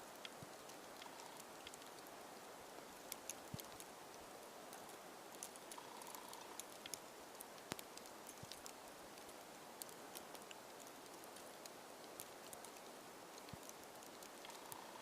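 Near silence with a faint hiss and many scattered light ticks: falling snow pattering on the camera and clothing in a snowstorm.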